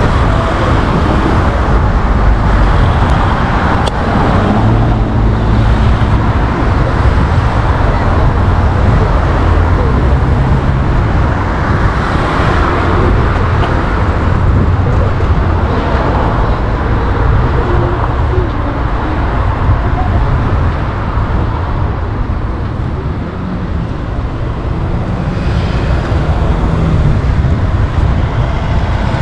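Traffic on a busy city street, heard from a bicycle: cars and other motor vehicles running and passing in a steady, dense noise that eases slightly about three quarters of the way in.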